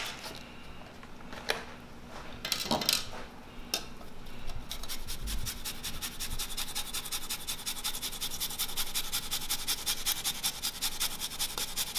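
Fresh ginger root being grated on a long stainless-steel rasp grater: a few light knocks at first, then from about five seconds in a steady rhythm of quick rasping strokes, several a second.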